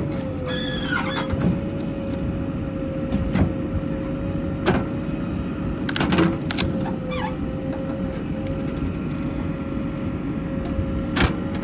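Heavy diesel vehicle engine running steadily with a constant whine over it, broken by a few sharp clanks and brief squeaks.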